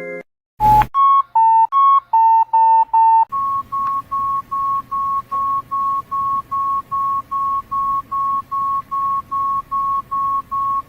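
Electronic beep tone from a MediaTek phone. After a click, short beeps alternate between two pitches for a couple of seconds, then continue as a steady run of identical beeps at about two and a half per second, like an alarm.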